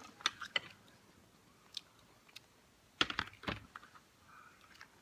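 Cooked crab being eaten: its shell clicks and cracks as it is handled and bitten, with a few scattered clicks and then a cluster of sharp cracks about three seconds in.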